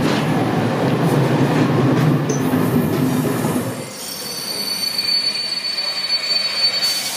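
Passenger coaches rolling past close by with a heavy rumble of wheels on rail. About four seconds in this gives way to a double-deck passenger train moving through the station, its wheels giving a thin, steady high-pitched squeal over a quieter rolling sound.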